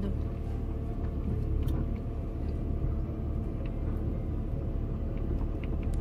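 Car's engine and road noise as a steady low rumble, heard from inside the cabin while driving, with a few faint clicks.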